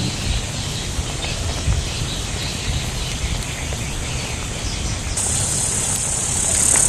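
Wood cooking fire crackling faintly under a simmering wok, over a low steady rumble. A high steady insect drone grows louder about five seconds in.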